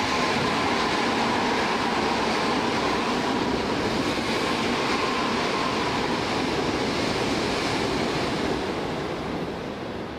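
Keikyu electric train passing along the station platform, the rush of wheels and running gear lasting about nine seconds with a faint, slowly falling whine. The noise fades near the end as the last car clears.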